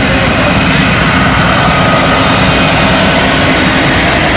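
Farm tractor engine running steadily at low speed as the tractor passes close by, pulling a hay wagon.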